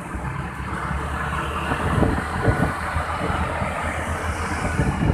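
Motor scooters riding along together: a steady engine hum with road and wind noise, with a few brief louder swells.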